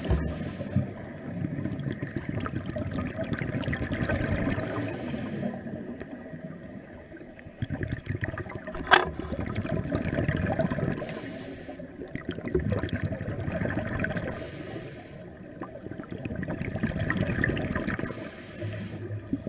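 Scuba regulator breathing heard underwater through a camera housing: rounds of exhaled bubbles gurgling a few seconds apart, about four in all, with quieter spells between. One sharp click about nine seconds in.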